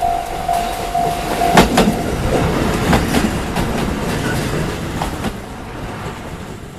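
Japanese level-crossing alarm pulsing with a repeating tone that stops about a second and a half in, followed by the clickety-clack of a KiHa diesel railcar's wheels over the rail joints with a steady rumble, fading near the end.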